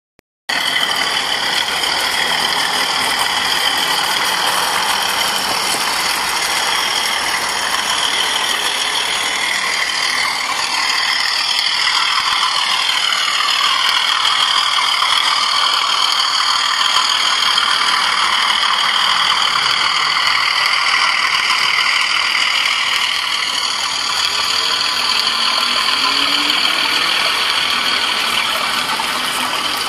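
Model diesel locomotives running on garden railway track: a steady mechanical whir of motors and gears with wheel noise on the rails, and sweeping changes in pitch as a train passes close by.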